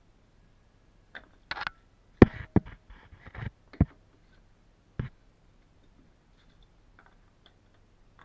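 Sharp clicks and knocks of hand-tool work with pliers on a wall corner, about a dozen of them between one and five seconds in.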